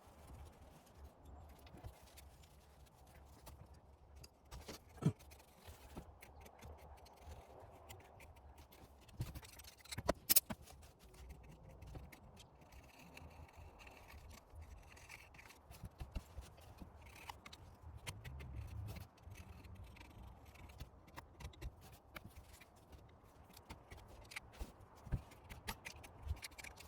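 Faint scratching and scraping with scattered small clicks: hand cleaning of heavy deposits from the air intake valve area of a 22RE engine. Two sharper knocks come about 5 and 10 seconds in.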